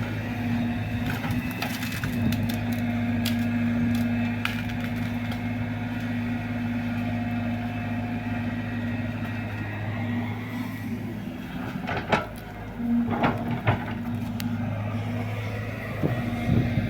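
Excavator's diesel engine running steadily under load while it digs, its pitch wavering a little. Scattered sharp knocks and cracks come through, bunching up in the last third.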